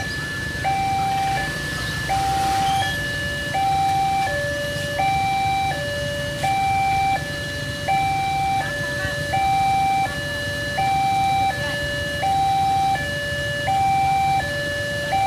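Railway level-crossing warning alarm sounding, an electronic two-tone signal that swaps between a higher and a lower note about every three quarters of a second. It warns that a train is approaching. Under it runs a low steady rumble.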